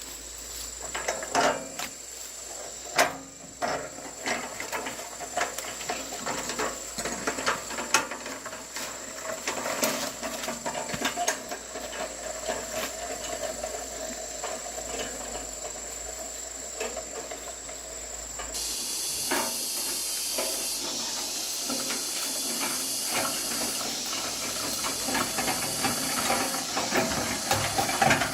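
Scattered knocks and clinks of repair work on metal parts, with a steady hiss starting about two-thirds of the way through.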